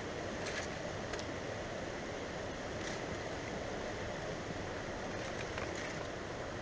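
Aluminum foil being pulled open and handled, a few brief crinkles over a steady rushing background noise.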